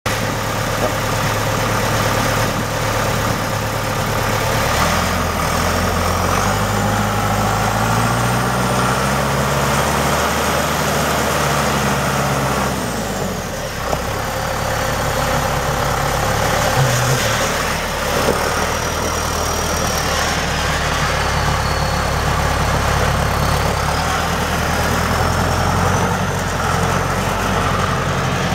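John Deere 5525 tractor's four-cylinder diesel engine running under way. Engine speed rises about five seconds in, drops sharply near the middle, then picks up again and holds steady. A faint high whine rises and falls with the engine.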